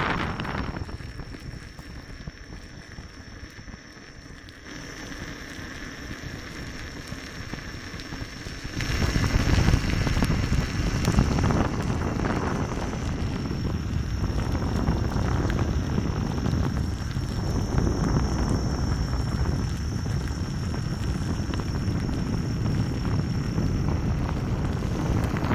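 Wind buffeting the microphone over a steady crackling rumble of tyres rolling on a gravel path at speed. It is softer for the first several seconds and grows louder and rougher about nine seconds in.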